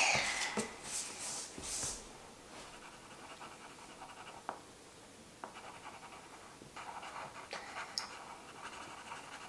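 Breathy panting for about the first two seconds, then faint scratching of a colored pencil drawing on paper, with a couple of light taps.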